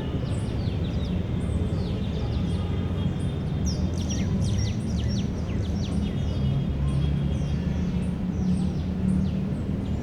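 Park ambience: many small birds chirping in short falling notes, busiest about four to five seconds in, over a steady low rumble of distant city traffic.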